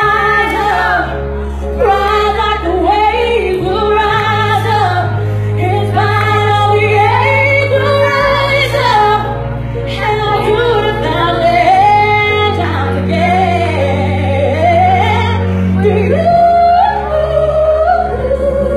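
A woman singing a song over musical accompaniment, her voice gliding and holding notes above long sustained bass notes that change about every four seconds.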